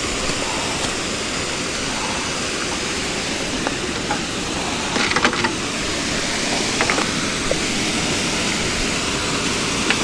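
Steady rush of flowing creek water, with a few faint clicks about five and seven seconds in.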